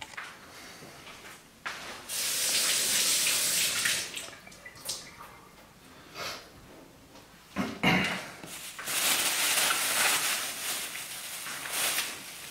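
Water running from a kitchen tap in two spells of steady rushing, the second a little longer, with a short knock between them.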